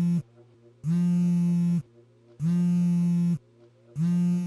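Smartphone vibrating on a wooden bedside table, buzzing in repeated pulses about a second long with short gaps, the repeating pattern of an incoming call. The last buzz weakens and cuts off as the phone is picked up.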